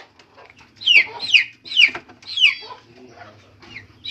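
Desi chickens calling: a quick run of four or five short, high, falling calls about a second in, then fainter calls.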